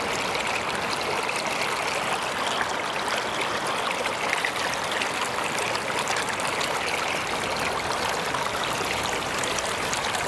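River water flowing over rocks, a steady even noise.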